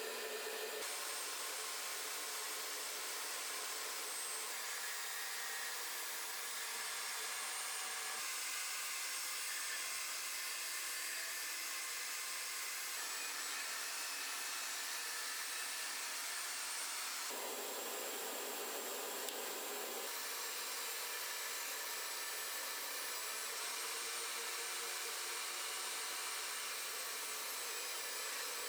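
Steady whir of an electric workshop machine running, its tone shifting abruptly a few times.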